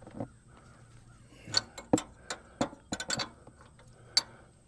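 About eight sharp, irregular metallic clicks and clinks from a wrench working a power steering line fitting tight, bunched in the middle of the stretch.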